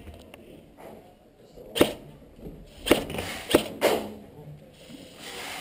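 Airsoft gunfire close by: four sharp cracks at irregular spacing over about two seconds.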